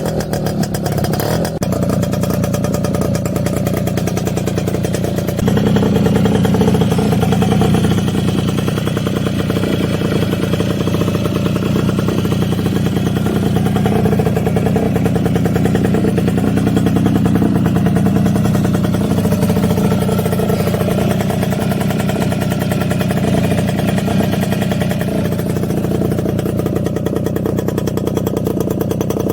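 Restored Suzuki AX100's two-stroke single-cylinder engine running steadily, picking up a little in revs about five seconds in and holding there.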